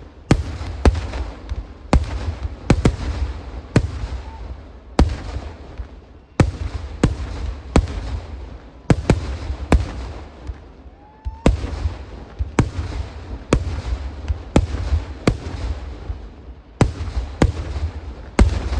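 Kerala temple fireworks display (vedikkettu) going off: a rapid, irregular series of loud, sharp bangs, about one every half second to a second, each trailing into a low rumble.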